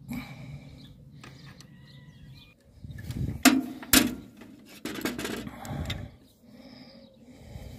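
Metal hand tools knocking and clinking on the baler's steel fittings: two sharp knocks about three and a half and four seconds in, then a short run of clatter.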